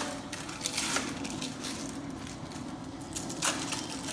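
Kitchen utensils clinking, knocking and scraping against cookware as the sliced beef is handled in its pot of au jus, with a few sharp knocks about a second apart.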